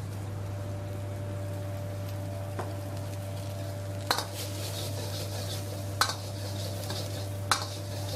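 Metal wok ladle stirring vegetables in a wok, scraping the pan and striking it with a sharp clank every second or two, starting a few seconds in, over a steady low hum.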